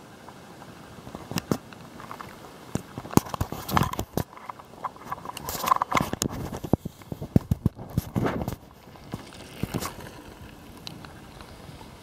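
Irregular clicks, knocks and scuffing from a phone being handled close to its microphone, with fingers brushing it and shoes scraping on gravel; the loudest scuffles come in bursts around the middle, then it settles near the end.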